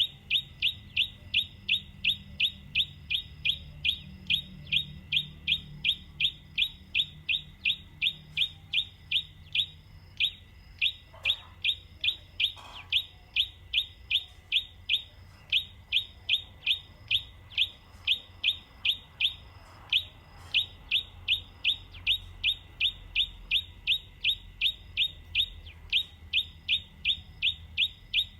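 A bird chirping over and over at an even pace, about three short sweeping chirps a second, with brief pauses about ten and twenty seconds in.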